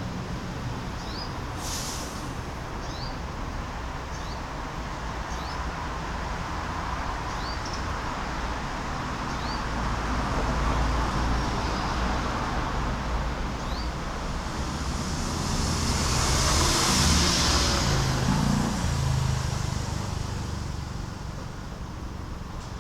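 Road traffic noise, with a passing vehicle swelling to its loudest about two-thirds of the way through and then fading. Over it come short rising chirps from a small bird, repeated about once a second through the first half.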